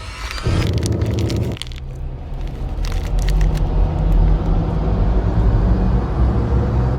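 A motor vehicle's engine rumbling steadily and growing louder over the last few seconds, with a few sharp clicks near the start.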